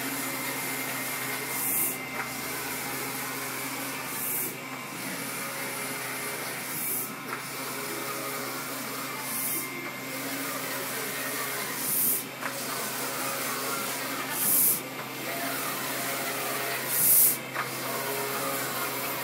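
Large-format inkjet printer running while it prints a banner: a steady hum of motors and dryer fans, with a short hissing swish about every two and a half seconds.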